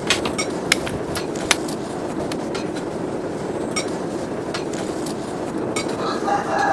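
Steady rushing noise with a few sharp metallic clinks in the first second and a half and fainter ones later.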